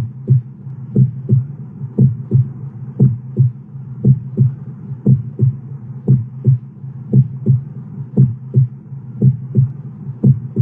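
Heartbeat: a steady double thump, lub-dub, about once a second, over a low hum.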